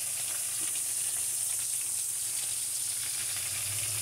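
A whole fish sizzling steadily as it pan-fries in hot oil in a non-stick frying pan.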